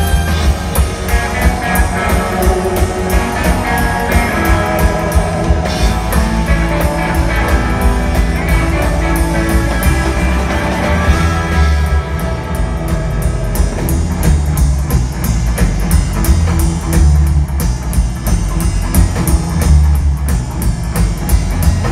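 Live rockabilly big-band music with no vocals: a hollow-body electric guitar leading over drums, bass and a horn section, with a steady drum beat throughout.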